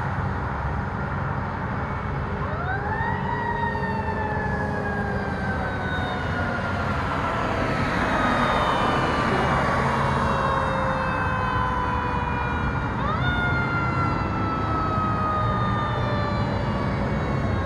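Fire apparatus's mechanical siren, a Federal Q type, winding up quickly and coasting slowly back down, twice about ten seconds apart, over steady road-traffic noise.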